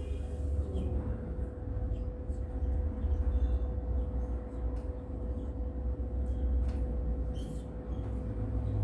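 Steady low rumble of background noise with a faint constant hum and a few small scattered clicks.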